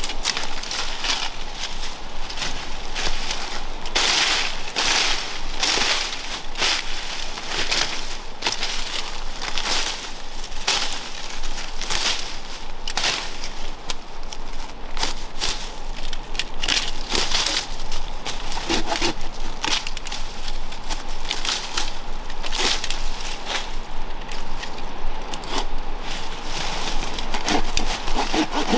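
English ivy vines being torn and stripped from a tree trunk: stems crackling and tearing and leaves rustling in irregular bursts, about one or two a second.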